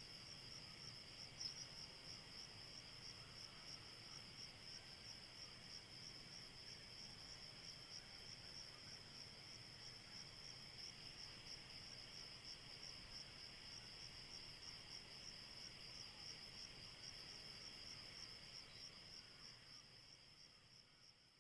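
Crickets chirping in a steady, evenly pulsing chorus, fading out near the end.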